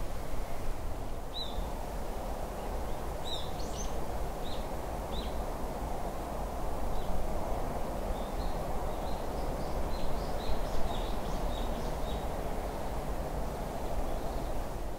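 Forest ambience: a steady rushing noise with a low rumble, and small birds giving short high chirps now and then, more often in the second half.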